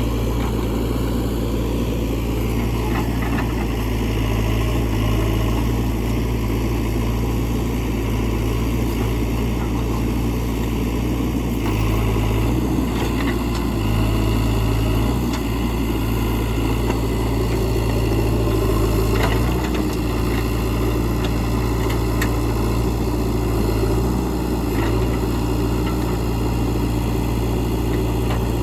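JCB 3DX Eco backhoe loader's diesel engine running steadily while working.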